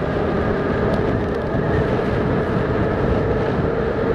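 HappyRun F18 Pro electric bike ridden at a steady cruising speed: wind and road rumble over the microphone with a steady hum.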